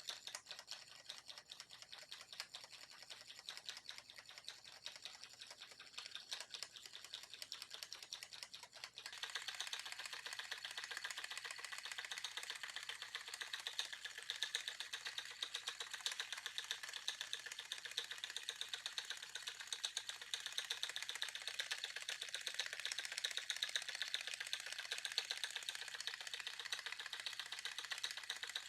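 A small mechanical patting machine tapping rapidly and evenly, a fast run of clicks, as it pats a cat's rump. About nine seconds in the tapping gets louder and brighter and keeps going steadily.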